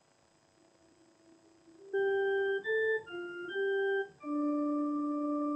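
Organ playing a short single-line phrase of five notes, beginning about two seconds in, with the last note held for about a second and a half. It is the musical cue for the sung acclamation after the consecration.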